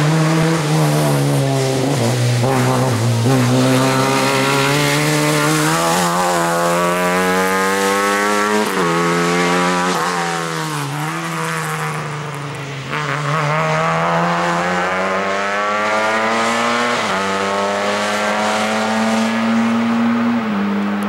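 Lada 2105 rally car's four-cylinder engine driven hard, revs climbing and then dropping sharply several times as it shifts gear and lifts for corners.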